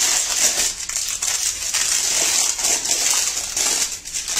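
Greased butter paper crinkling and rustling as hands fold and crumple it over a warm lump of jaggery-sesame mixture.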